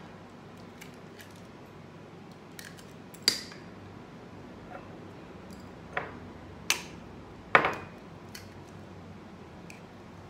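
Eggs being tapped on a hard edge and cracked open: four sharp knocks spread over several seconds, with fainter clicks of shell between.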